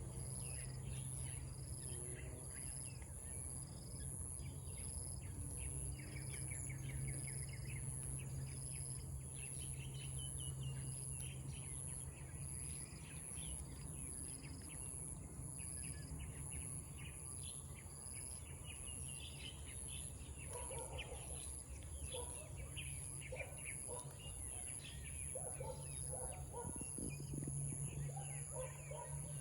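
Rural outdoor ambience: insects shrilling steadily, one chirping in regular pulses a little more than once a second, with birds chirping and calling, lower calls joining in the second half, over a steady low hum.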